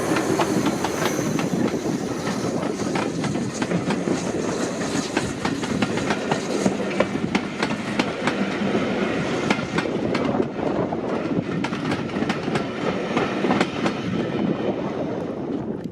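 A train passing close by, a steady loud rumble with the wheels clattering over the rail joints in a continuous run of irregular clicks.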